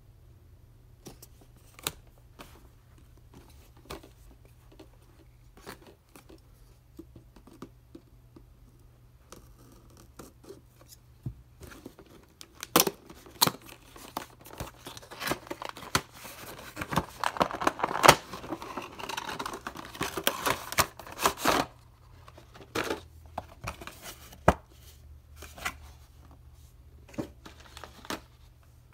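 Cardboard toy box and clear plastic blister tray being handled and opened. Scattered light taps and clicks come first. About twelve seconds in, a dense run of crinkling and scraping lasting about ten seconds begins as the plastic tray is slid out of the box, followed again by occasional clicks.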